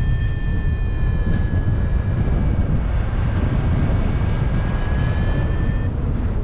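Strong wind buffeting the microphone in flight, with a continuous electronic tone from a Flymaster variometer over it. The tone sags slightly in pitch and rises again, then cuts off near the end.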